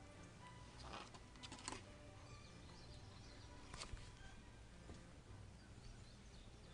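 Near silence with three soft taps or rustles, spread over the first four seconds, and a few faint bird chirps.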